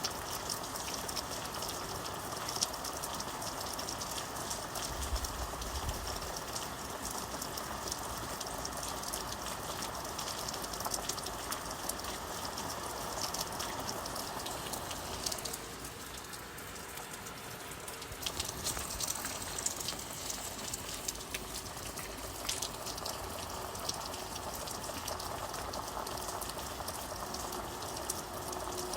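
Steady rain with the close patter of many individual drops, easing slightly for a couple of seconds past the middle.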